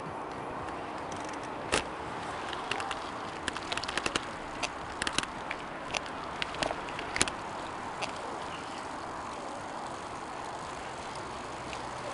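Outdoor roadside ambience: a steady rush of noise with scattered sharp clicks and crackles, most of them between about two and seven seconds in.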